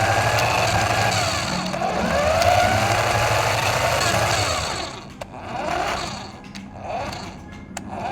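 RC car motor whining, its pitch rising and falling as it speeds up and slows down. About five seconds in the sound breaks into shorter spurts of acceleration, with a few sharp clicks.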